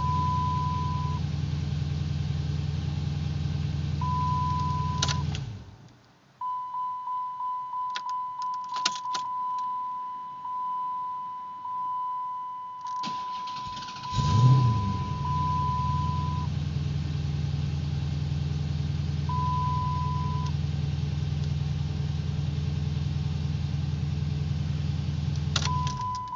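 Car engine idling with an on-off warning tone, shut off about five seconds in; a chime beeps in quick pulses and keys jingle. About fourteen seconds in the engine cranks and catches almost at once, then settles back into a steady idle: a prompt start with the hard-start problem cured by an added ground.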